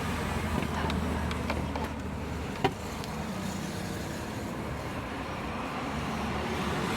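Electric fan running, a steady rush of air with a low hum. A single sharp click about two and a half seconds in.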